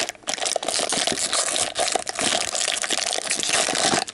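Holographic foil packets crinkling as they are pulled and wrestled out of a tightly packed plastic container, with many small crackles and a brief pause just after the start.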